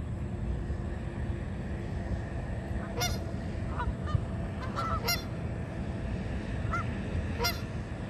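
Canada geese honking: about six short, scattered honks, starting about three seconds in, over a steady low rumble.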